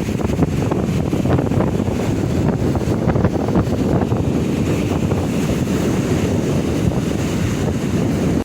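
Wind buffeting the microphone over the steady rush of sea surf breaking on a beach, with irregular gusts.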